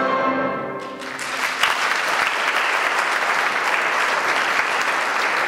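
The choir's final chord fades out, and about a second in the audience starts applauding, a steady clapping that holds.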